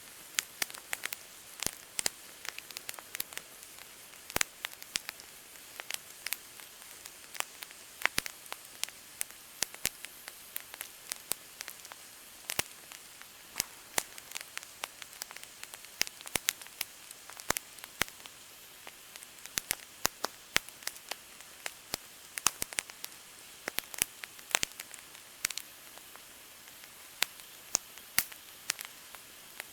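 Wood campfire crackling: irregular sharp pops and snaps, several a second, over a faint steady hiss.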